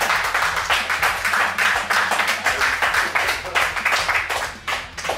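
Applause: several people clapping together to mark the finish of an eating challenge. The clapping thins out and dies down near the end.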